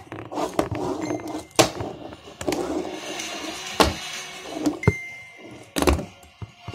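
Fingerboard clacking and knocking against a felt-covered table as tricks are tried: a string of sharp clacks, roughly one a second, with a softer scrape of the little board's wheels and deck between them.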